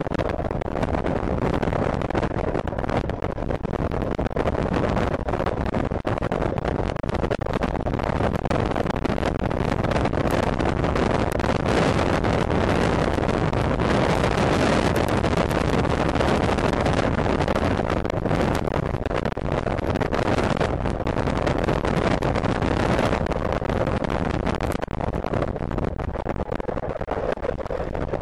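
Wind rushing and buffeting over the microphone of a camera mounted on a Zongshen electric racing motorcycle at race speed: a loud, steady rush with constant crackle.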